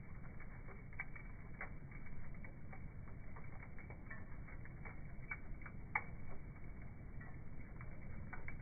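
Campfire crackling: scattered sharp pops, a few louder than the rest, over a low steady rumble.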